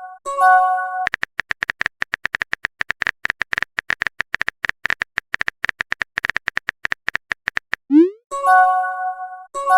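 Phone messaging sound effects: a short pitched chime, then several seconds of rapid virtual-keyboard typing clicks, then a quick rising swoop and another chime near the end.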